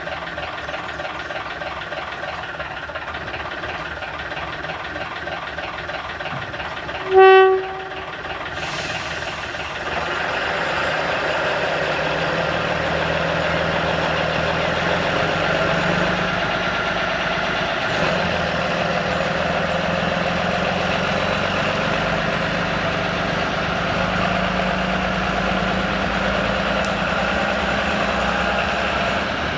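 Diesel train engine idling, then one short horn blast about seven seconds in. About three seconds later the engine opens up louder and keeps running steadily as the train moves off.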